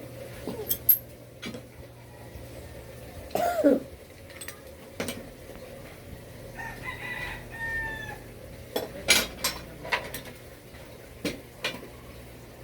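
A rooster crowing once, about halfway through, with a shorter pitched call a few seconds before it. Sharp knocks and clicks come scattered throughout.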